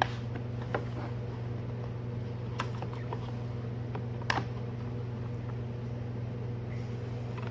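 A few short clicks and knocks of plastic windshield pillar trim being handled and fitted, the sharpest about four seconds in, over a steady low hum.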